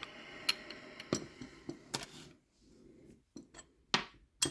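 Scattered sharp clicks and taps of small metal parts being handled, about half a dozen, with a quieter pause in the middle and a cluster near the end.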